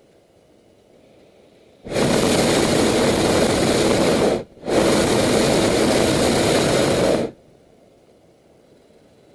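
Hot-air balloon's propane burner firing in two blasts of about two and a half seconds each, separated by a brief cut-off of a fraction of a second.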